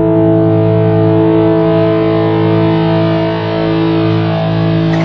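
Music: a held, distorted electric guitar chord ringing steadily.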